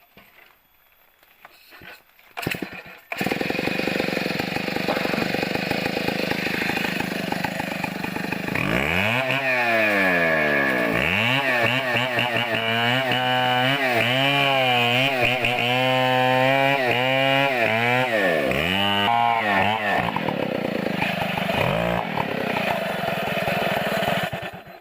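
Two-stroke chainsaw starting about three seconds in. Its engine speed then repeatedly drops and climbs as it cuts into a coconut palm trunk, and it cuts off near the end.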